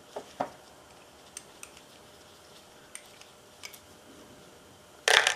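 Light clicks and taps of a screwdriver and small metal parts as a small-engine carburetor is taken apart by hand, a handful of separate ticks spread over a few seconds. A short, loud burst of noise about five seconds in.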